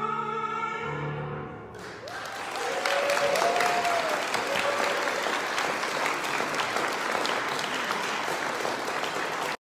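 The music's final held chord dies away over the first two seconds, then an audience breaks into applause, with a few voices calling out shortly after it starts.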